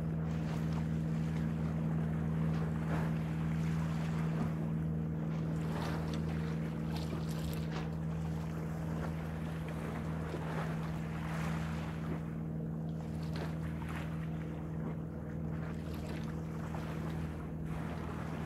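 A steady low mechanical hum, unchanging throughout, under wind on the microphone and the wash of sea water.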